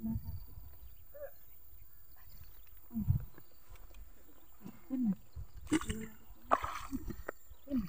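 A few short, low grunts and murmured voice sounds of people straining as they step across a muddy creek, spaced a second or two apart and coming more often near the end, over a low steady rumble on the microphone.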